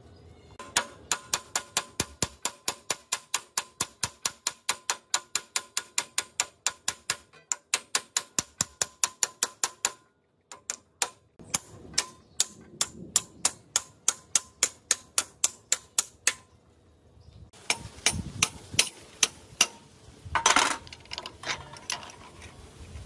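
Hammer tapping a steel drift to drive a gear shaft out of an old Makino milling machine's cast-iron gearbox housing. Even metal-on-metal blows come about four a second, each with a ringing tone. They pause briefly twice, and one strike near the end is louder.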